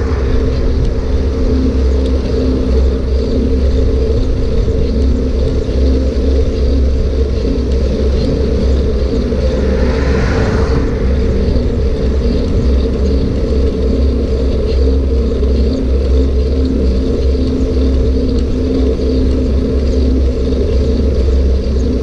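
Loud, steady rumble of wind and road noise from riding a bike along a paved road, with a vehicle swelling past about ten seconds in.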